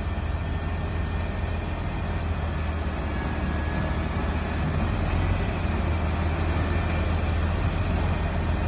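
Crane truck's engine running steadily to power the boom during a lift, a low hum that grows slightly louder about halfway through.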